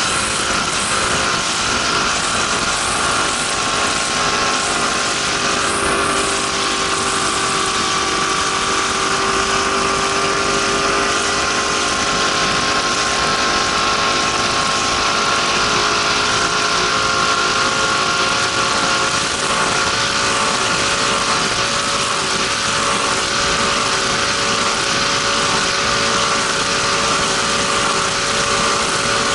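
Racing powerboat's engine running hard and steadily at speed, heard from on board. Its pitch wavers slightly a few seconds in, then holds.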